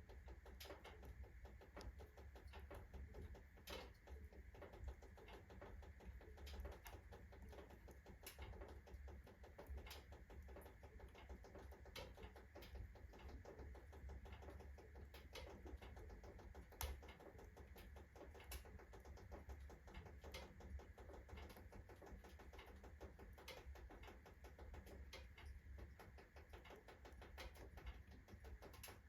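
Irregular sharp ticks and clicks, several a second, from a freshly fed wood fire in an iron stove and from the stove's iron expanding as it heats fast, over a faint low hum.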